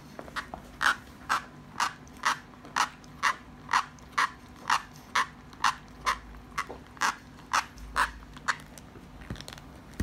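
Basset hound gnawing a chew that squeaks with each bite, in a steady rhythm of about two short squeaks a second that stops about a second and a half before the end.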